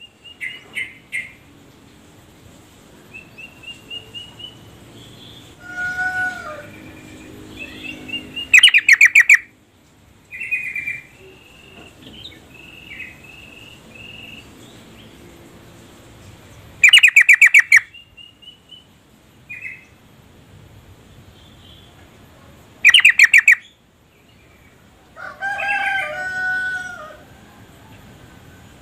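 Female yellow-vented bulbul (trucuk) calling: loud, rapid chattering bursts under a second long, coming every six to eight seconds. Softer whistled notes and short glides fill the gaps between them.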